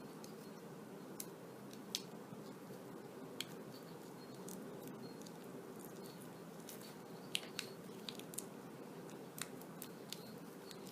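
Faint, scattered small clicks and ticks of black electrical tape being worked around an Ethernet (LAN) cable by hand, over a steady low hum.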